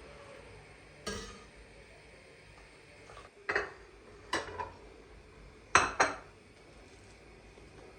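Hard objects clinking and knocking as they are picked up and set down on a hard surface: a scatter of separate knocks, the last ones in close pairs, the loudest pair near six seconds in.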